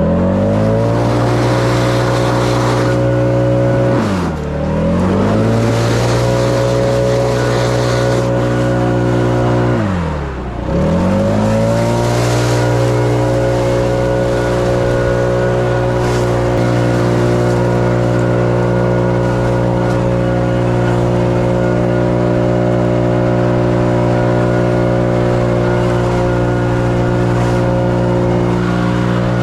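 Gas leaf blower running at full throttle. Its engine pitch drops and climbs back twice, about 4 and 10 seconds in, then holds steady.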